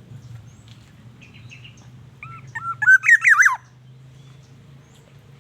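Black-naped oriole calling: one short phrase of fluty whistled notes that rise and fall, beginning a little over two seconds in and lasting about a second and a half, over a faint steady low hum.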